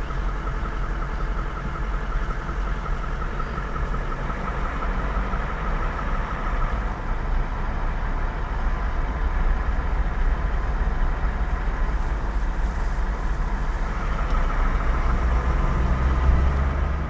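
Vehicle engine running steadily, heard from inside the cabin, with a low rumble that grows louder over the last few seconds as the vehicle moves off.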